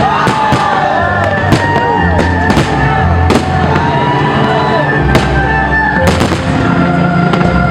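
Fireworks bursting with irregular sharp bangs, several a second at times, over music playing throughout.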